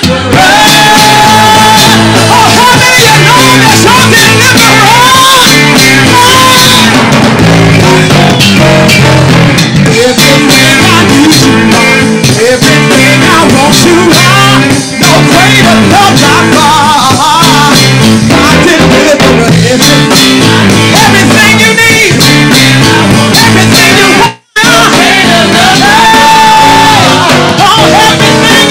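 Live gospel praise-and-worship music: a band with guitar behind singing voices. The sound drops out for an instant near the end.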